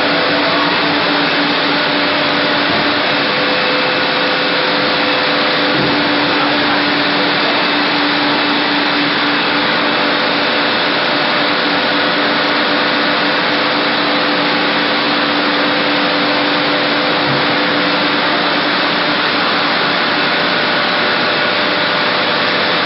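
Polystyrene foam sheet extrusion line running: a loud, constant rushing machine noise with a steady hum.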